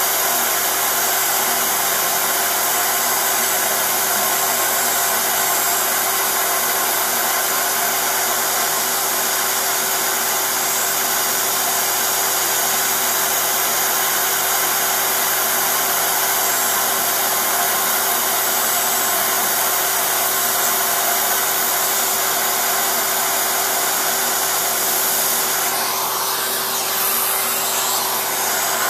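Router spindle of a small CNC mill running steadily at high speed, its fine bit milling a clear plastic block. The sound wavers briefly near the end.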